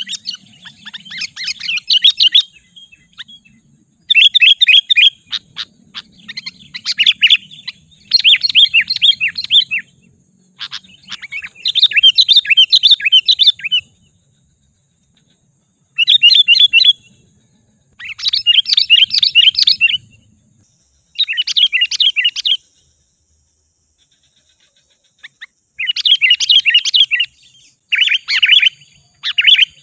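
Sooty-headed bulbul singing: about ten loud phrases of fast, bubbly chattering notes, each one to three seconds long, with short pauses between them.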